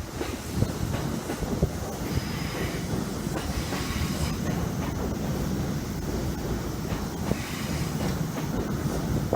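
Chuo Line electric train running slowly under a strong-wind speed restriction: a steady low rumble with irregular wheel clicks and knocks.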